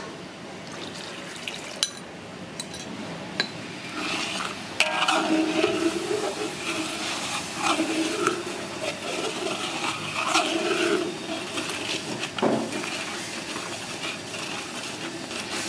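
A metal ladle stirring and scraping around a wok of bubbling, frying brown sauce, with clinks against the pan. The stirring and bubbling get louder about five seconds in.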